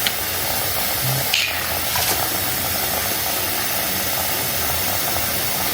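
Steady hissing noise with a few faint clicks.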